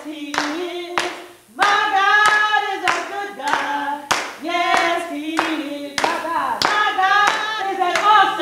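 Gospel-style church singing with hands clapping in time, roughly every half second, and a brief pause just after a second in.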